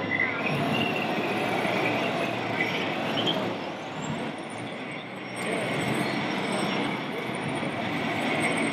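Steady din of a crowded hall: people chattering over the running noise of model vehicles, with a few brief high squeaks.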